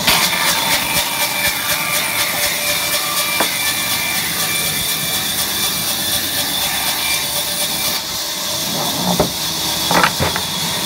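Large band saw blade cutting lengthwise through a log: a steady rasping noise with a thin high whine over the running mill. A couple of sharp knocks near the end.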